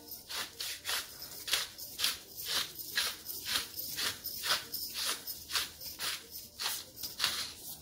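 Hand-twisted pepper mill grinding black peppercorns, a short gritty rasp with each twist, about two to three a second.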